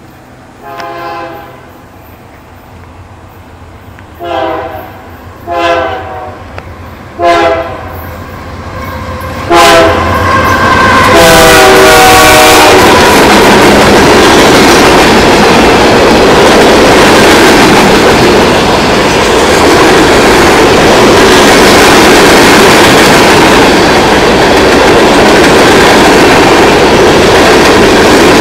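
Freight train's diesel locomotive sounding its horn in a series of blasts that get louder as it approaches, the last one long. The locomotives then pass and a string of hopper cars rolls by close up, a loud, steady noise of steel wheels on the rails.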